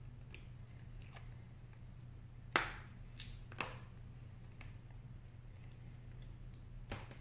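A few sharp clicks and taps as an iPhone 6 is handled and pressed by hand, the loudest about two and a half seconds in, over a steady low hum.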